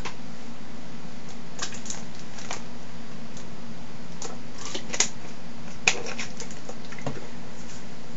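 Steady low hum and hiss with scattered faint clicks, two of them slightly sharper a little past halfway.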